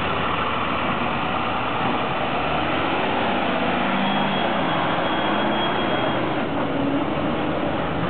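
Heavy diesel machinery running steadily at a construction site, engines and hydraulics blending into a constant noise, with a faint high whine for about two seconds midway.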